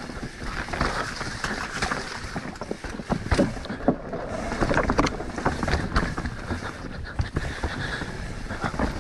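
Mountain bike descending a rocky trail: tyres rolling over dirt and rock with frequent knocks and rattles from the bike, and wind across the microphone.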